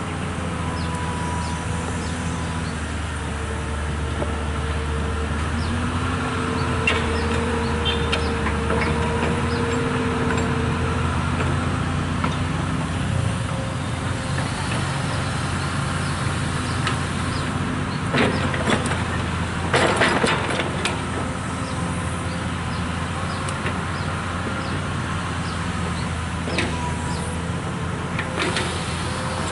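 Long-arm Komatsu PC200 excavator's diesel engine running steadily under working load, with a hydraulic whine that rises a little in pitch a few seconds in and holds for several seconds. A short cluster of knocks comes about two-thirds of the way through.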